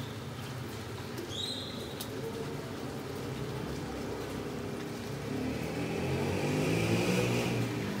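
Steady rain falling, with a motor vehicle passing by from about five seconds in, its engine pitch rising and falling and loudest near the end.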